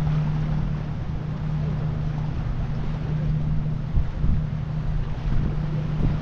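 Wind buffeting the microphone over a steady low engine hum, like a boat's motor running offshore.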